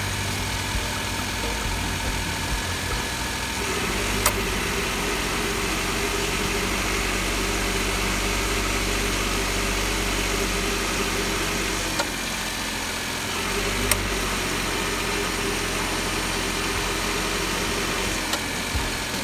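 Suzuki Carry DA63T kei truck's 660 cc three-cylinder engine idling steadily, its accessory belt and tensioner turning. The engine note shifts a little before 4 s in and again around 12 to 14 s in, with a few sharp clicks.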